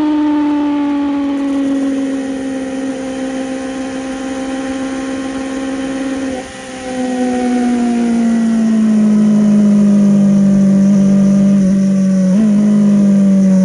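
Yamaha Fazer 600's inline-four engine running at high revs, its pitch slowly falling throughout. There is a brief drop in level about halfway through, then it carries on falling.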